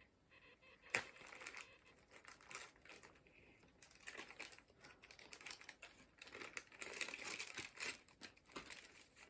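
Plastic packaging crinkling and crackling in irregular bursts as sunglasses are unwrapped and handled, with a sharp click about a second in.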